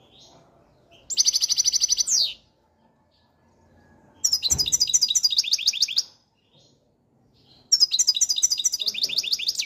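European goldfinch singing: three bursts of fast, rapidly repeated high twittering notes, each lasting one to two seconds, with short pauses between them.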